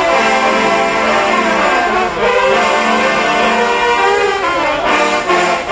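A marching band trombone section playing a funky tune together: loud, sustained brass chords, with notes that bend in pitch about two to three seconds in.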